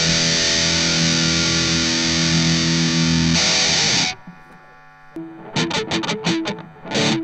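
Electric guitar played through the M-vave Mini-EFX pedal's distortion: a held, distorted chord on the Dist-MT1 setting rings out and is cut off about four seconds in. After a short gap, short chopped distorted chords on the Dist-MT2 setting.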